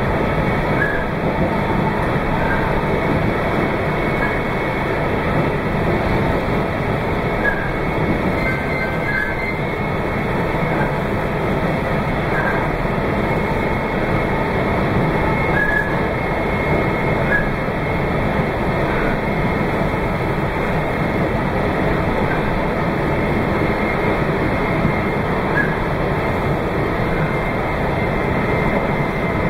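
Meitetsu 2200 series electric train running at speed, a steady rumble of wheels and motors heard from inside the car, with faint short high chirps now and then.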